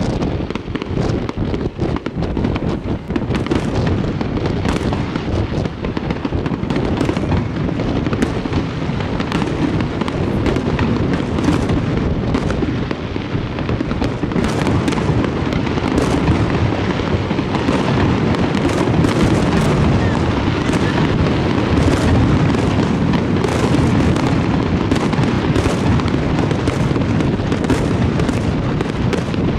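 Fireworks display: aerial shells bursting in a dense barrage of many sharp bangs over a continuous crackle and rumble, thickening after the first few seconds.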